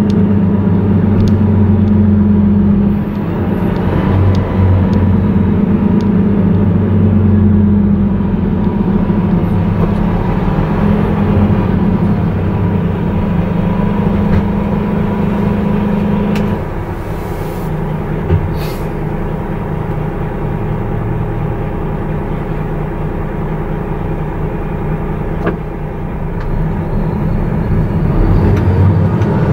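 Volvo lorry's diesel engine heard from inside the cab while driving, a steady low drone that drops in pitch and level about halfway through as the truck slows in traffic, then picks up again near the end.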